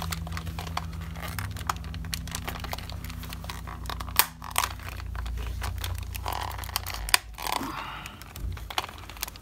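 Plastic clicks, creaks and rubbing as the housing of a pair of over-ear Bluetooth headphones is handled and pressed back together, with two sharper snaps about four and seven seconds in. A steady low hum runs underneath.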